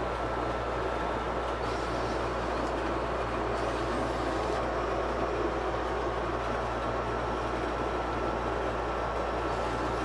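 Kossel delta 3D printer running a motion test, its stepper motors driving the carriages and effector around, over a steady whir with a constant high whine.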